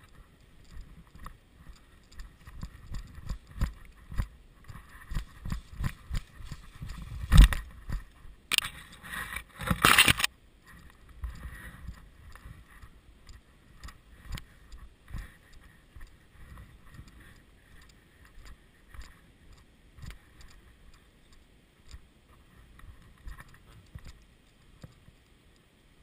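Footsteps of a person moving fast over dirt and grass, with gear jostling against the body-worn camera: irregular thumps and knocks, one loud knock about seven seconds in and a couple of seconds of loud rustling and scraping around nine to ten seconds in. The steps grow sparser and quieter in the second half.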